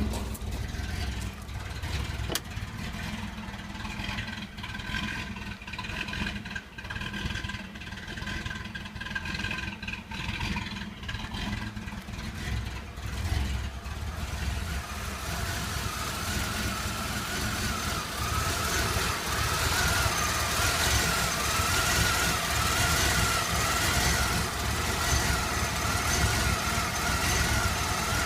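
Chevy S-10 Blazer engine running at a rough idle, which the owner asks about. About halfway a wavering whine and a hiss come in and it grows a little louder.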